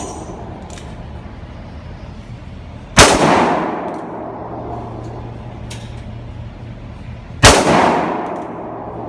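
Two handgun shots about four and a half seconds apart, each a sharp crack with about a second of echo rolling off after it.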